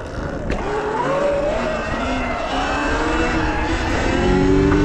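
Sur Ron X electric dirt bike on the move: the electric motor's whine climbs in pitch as the bike speeds up, over a steady rush of wind and tyre noise that grows louder.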